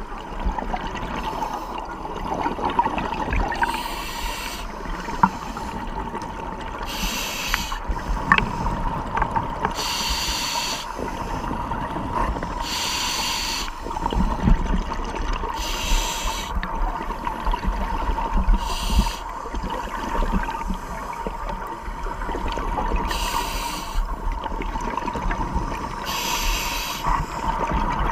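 Scuba diver breathing through a regulator underwater: a bubbling rush of exhaled air about every three seconds, over a steady whine.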